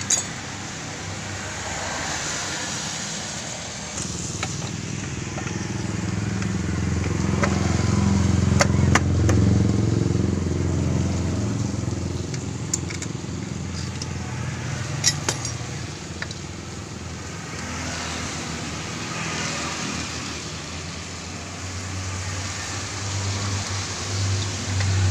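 A motor vehicle engine running, growing louder twice and easing off in between, with a few sharp metallic clinks.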